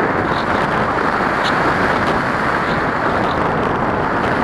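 Steady rush of airflow over the microphone of a camera riding on a ParkZone Radian RC glider in flight, with a few faint ticks.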